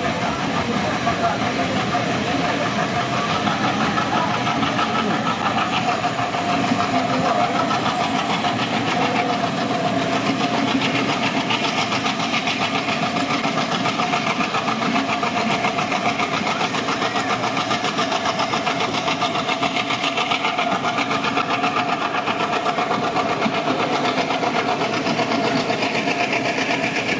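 Train running at speed, heard from on board: a steady rumble and rattle of the wheels and carriage with a steady drone underneath.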